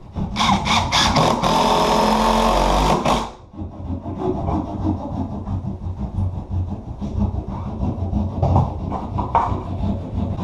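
A power tool's motor starts in a few quick bursts, runs steadily for about three seconds, then stops. Steady rough scraping work noise follows.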